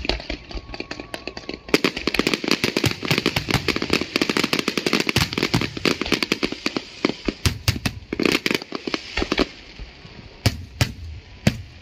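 Fireworks display overhead: a dense, rapid crackle of many small bursts begins about two seconds in and runs for several seconds. It then thins out near the end to a few separate loud bangs.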